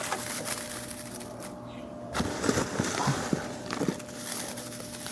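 Faint rustling and a few light taps as something is set into a terrarium on coco-fiber substrate, over a faint steady hum.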